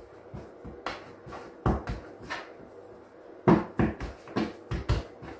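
Hands pressing and patting balls of soft chapati dough against a floured countertop: a series of soft thuds, a few at first, then a quicker run of them in the second half.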